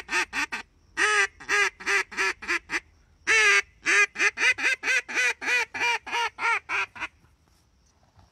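Reyoka duck call blown by mouth, giving a series of sharp duck quacks. One longer drawn-out quack comes about three seconds in, then a quick even run of about a dozen quacks, roughly four a second. The calling stops about a second before the end.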